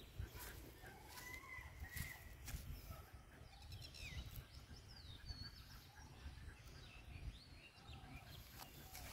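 Faint, distant bird calls: short chirps and whistles scattered through, over a low rumble.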